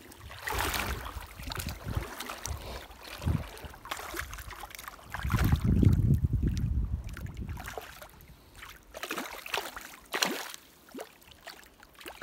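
Shallow river water rippling and splashing in short bursts as a hooked picuda is drawn through the shallows on the line. A loud low rumble comes in about five seconds in and lasts about two seconds.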